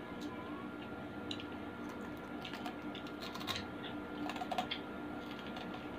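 Crisp clicks and crackles of food being handled and eaten at a foil-covered table. They come in a quick irregular run, thickest from about two and a half to five seconds in, over a faint steady hum.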